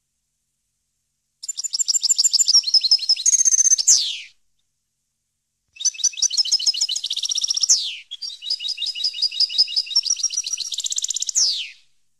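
European goldfinch singing: three song phrases, each a rapid string of high notes ending in a steep downward slur. The first starts about a second and a half in, and the second and third follow almost back to back after a short pause.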